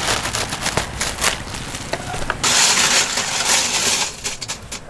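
Plastic bag crinkling and crackling as it is handled, then from about halfway a dense metallic jangle of steel wire meat hooks being stirred by hand in a stainless pot.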